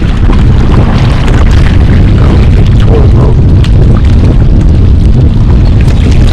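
Strong wind buffeting the microphone: a loud, steady, low rumble with no let-up.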